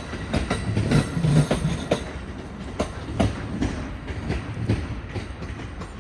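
Railway carriage wheels clacking over rail joints and switch points as a train of Green cars is moved across to another track. The clacks come in an irregular run over a steady rumble and ease off slightly toward the end.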